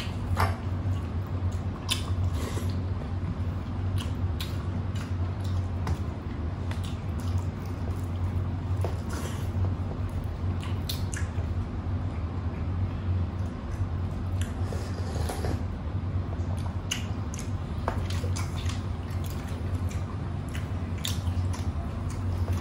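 Close-up eating sounds of people eating with their hands: wet chewing, smacking and squelching, with many short sharp clicks scattered throughout, over a steady low hum.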